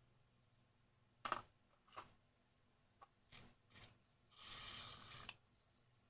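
Small metal guitar hardware parts clinking against each other or a hard surface, four sharp clinks over a few seconds, followed by a brief hiss lasting just under a second.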